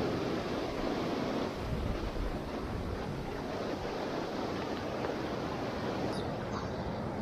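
Shallow creek water rushing over and between boulders in small rapids: a steady wash of water noise.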